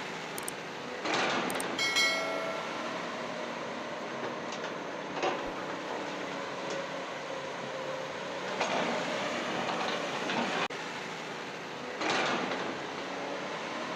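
Small electric motors and plastic gearboxes of a radio-controlled toy construction vehicle whirring steadily, growing louder in short surges about a second in, about two seconds in, and again around nine and twelve seconds in.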